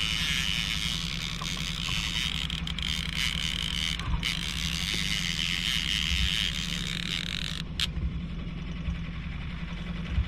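Boat's outboard motor running steadily at trolling speed, a low even hum. Over it a higher steady hiss cuts off suddenly about three-quarters of the way through.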